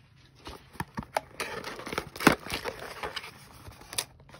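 Hands opening a cardboard trading-card hanger box: scattered clicks and taps with rustling of cardboard and plastic wrap, the sharpest click a little over two seconds in.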